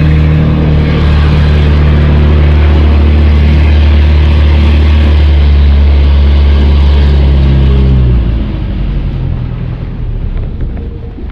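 Motorized outrigger fishing boat's engine running steadily at speed, then slowing and cutting off about eight seconds in. Wind and water noise is left after it stops.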